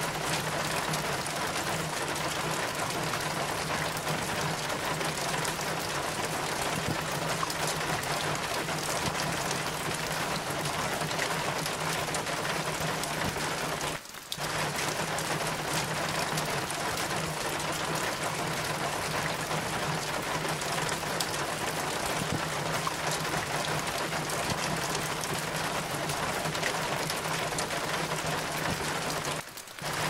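Steady rain falling and pattering on surfaces, with many small drips over a steady low hum. The sound cuts out for a moment about halfway through and again just before the end.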